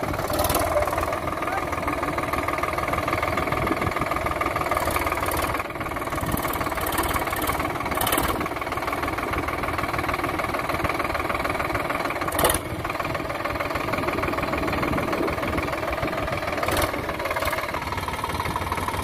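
Sonalika DI 47 RX tractor's diesel engine running steadily as the tractor drives through muddy ground and up a grassy bank, with a couple of short sharp knocks.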